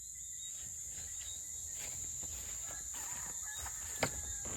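Bird calls over a steady high-pitched hiss, with one sharp click about four seconds in.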